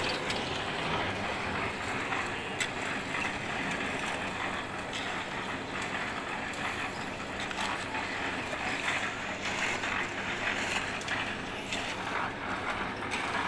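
Steady machine din of a concrete slab pour, with scattered sharp knocks and clatter.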